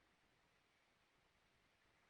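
Near silence: only faint background hiss.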